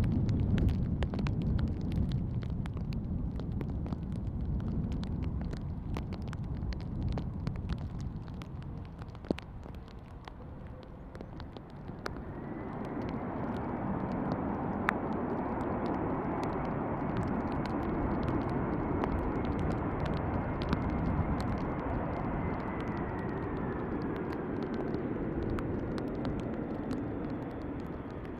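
Boeing 767's twin jet engines during the landing roll on a wet runway. A low rumble fades over the first ten seconds, then about twelve seconds in the engines rise into reverse thrust with a steady high whine. The whine slides down near the end as the engines spool back.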